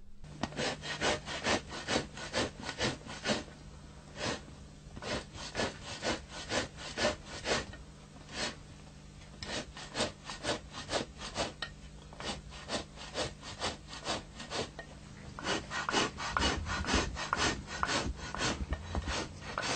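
A sheepskin pelt being scraped by hand with a tool during hand tanning. The scraping comes in runs of quick strokes, about two a second, with short pauses between runs, over a steady low hum.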